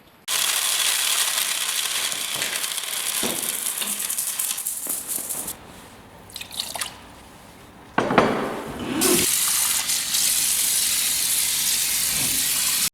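Water from a kitchen tap running hard into a composite granite sink, switching on suddenly. It drops away a little over five seconds in, leaving a few splashes, then comes back with a loud splash about eight seconds in and runs steadily until it cuts off abruptly.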